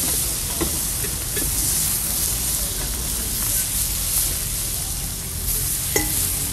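Kulchas frying in butter on a hot flat griddle (tawa), a steady sizzle, with a few light clicks as they are turned and stacked and a sharper click about six seconds in.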